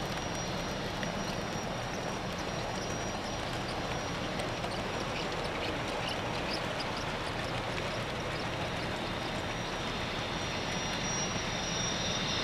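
Model train passenger cars rolling along the track: a steady rumble of wheels on rail with light ticking as the cars pass, growing a little louder near the end.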